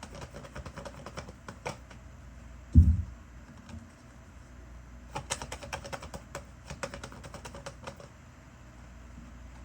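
A run of light, irregular clicks and taps, densest in the second half, with one loud low thump about three seconds in.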